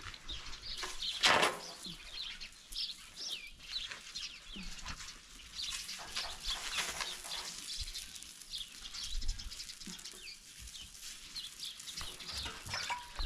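Many small birds chirping in quick, overlapping short calls, with one short, louder burst of noise about a second in.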